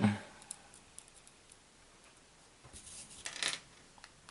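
Small plastic model-kit parts being handled on a desk: a few faint clicks, then a short rustle about three seconds in.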